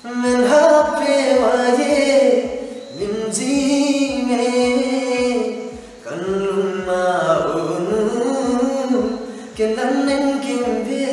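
A young man singing a Limbu-language song in long, gliding held notes, with a low thump keeping time about twice a second.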